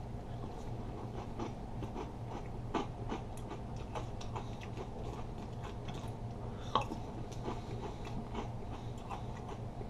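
Crunchy breakfast cereal being chewed: a run of small, irregular crunching clicks, with a sharper crunch about three seconds in and another near seven seconds, over a steady low hum.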